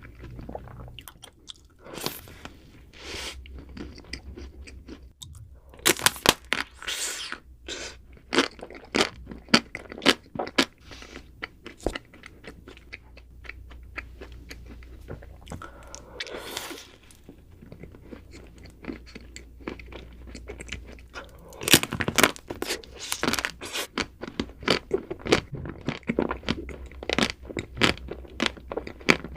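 A person chewing and biting crisp food, with rapid crunches in clusters; the crunching is busiest early on and again from about two-thirds of the way in, with a quieter spell of softer chewing between.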